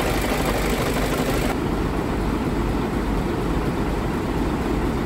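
Scania P truck's 340 hp Euro 4 diesel engine idling steadily, with a deep, even running sound; the treble drops away about a second and a half in and it sounds duller from then on.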